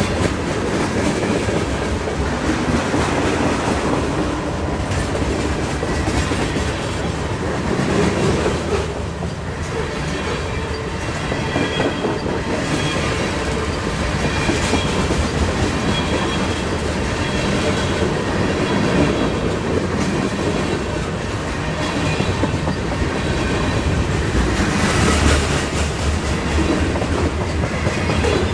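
Freight train of tank cars and covered hoppers rolling past close by: a steady rumble and clatter of steel wheels on the rails.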